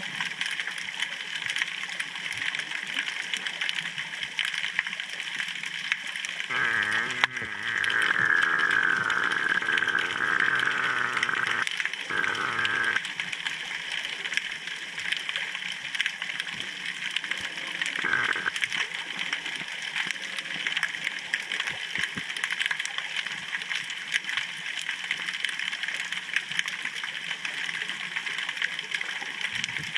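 Underwater ambience picked up by a submerged camera: a steady crackling hiss of fine clicks. About six seconds in, a louder wavering, bleat-like tone joins it and runs for roughly six seconds, with a short return near eighteen seconds.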